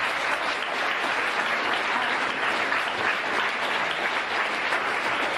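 A crowd applauding, many hands clapping at an even level.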